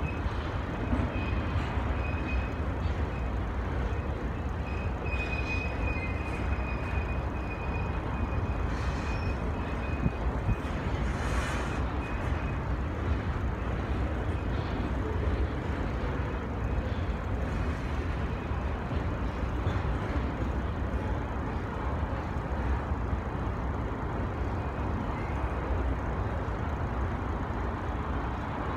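BNSF grain train of covered hopper cars rolling across a steel truss bridge: a steady rumble of wheels and cars, with a faint high squeal coming and going in the first dozen seconds.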